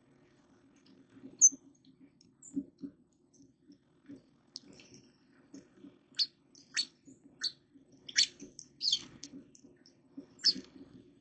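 Small birds giving short, high chirps, scattered at first and coming in quicker succession in the second half, over soft low tapping.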